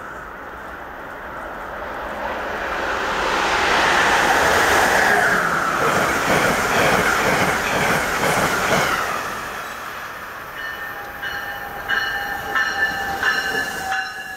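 Amtrak passenger train of Amfleet coaches passing through the station at speed on snow-covered track: a rushing roar of wheels and air that builds for a few seconds, holds, then fades. Near the end, a few sharp knocks come with a steady high ringing tone.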